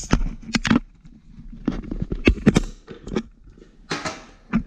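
Sharp clicks and knocks of an air-hose quick-disconnect coupler being handled as a tool is pulled out of it, with a short rushing noise about four seconds in.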